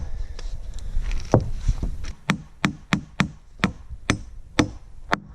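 Hammer driving a nail into a log, about ten sharp strikes at roughly two a second, beginning about a second in.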